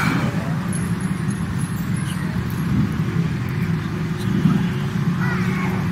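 A steady low engine hum, unchanging throughout.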